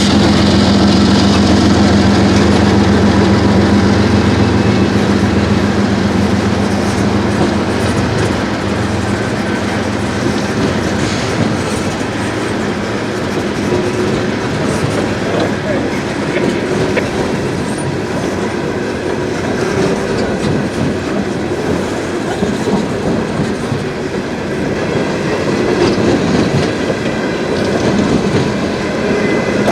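CSX freight train passing close by. The diesel locomotive's engine drone is strong at first and fades within the first several seconds, giving way to the steady rumble and clickety-clack of the freight cars rolling past over the rail joints.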